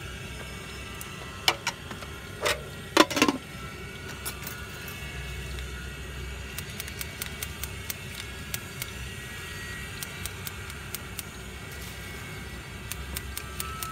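A metal spoon clinks against the rim of an aluminium pot a few times while ladling peanut sauce, loudest about three seconds in. A run of light, quick ticks follows, with a steady traffic hum behind.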